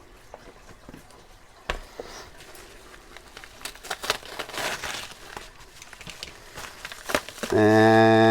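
Plastic packaging rustling and crinkling as it is handled and opened, with a sharp knock about two seconds in. Near the end a loud, steady, low-pitched hum starts and holds.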